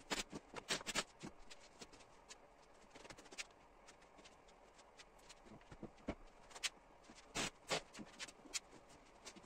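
Faint irregular rustling and light clicks and knocks of upholstery padding and fabric being handled and spread out on a wooden workbench, with small clusters of louder handling noises now and then.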